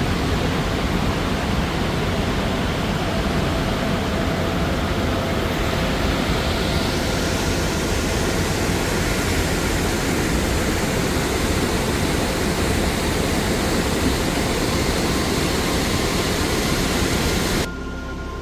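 Steady rushing roar of Sheep River Falls, the water's noise even and unbroken, cutting off abruptly near the end.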